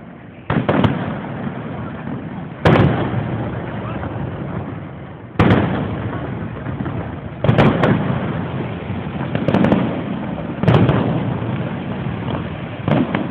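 Aerial fireworks shells bursting: about eight loud booms a second or two apart, each dying away in a rumble.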